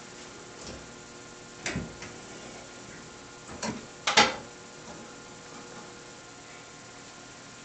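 A few sharp metal clicks and knocks from handling a heavy-gauge steel wall-mounted computer desk. One comes about two seconds in, another near four seconds, and a double knock just after is the loudest. A steady low hum runs underneath.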